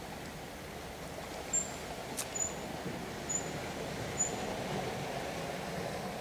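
Steady outdoor background noise, like a distant wash of surf or wind. Over it come four short, very high chirps about a second apart, and a single click between the first two.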